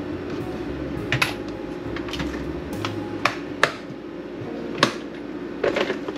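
Scattered sharp clicks and light knocks of hand tools and small hardware being picked up, handled and set down, about half a dozen in all, over a steady low hum.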